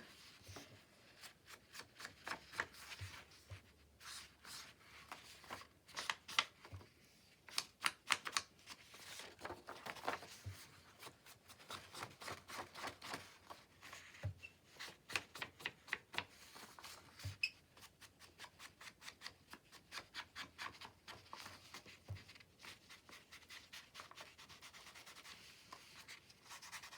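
Quick short rubbing strokes of a foam ink dauber worked along the edges of paper pages, coming in runs with brief pauses, faint overall.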